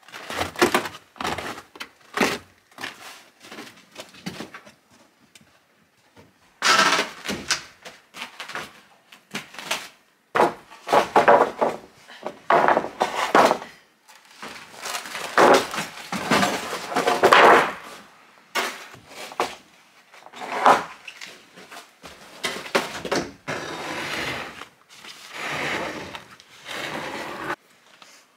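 Wooden 2x4 boards knocking together and thudding onto a stack as they are handled and set down, a long run of sharp knocks and clattering rattles with short pauses.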